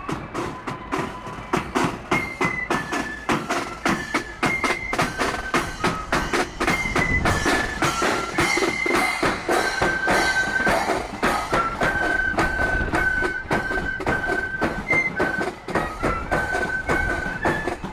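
Marching flute band playing a tune on side-blown flutes, with a bass drum and cymbals keeping a steady marching beat.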